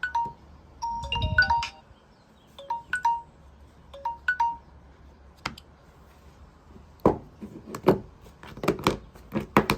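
A mobile phone's alarm tone: short bell-like notes in quick melodic phrases, which stop about halfway through. Several sharp clicks and knocks follow near the end.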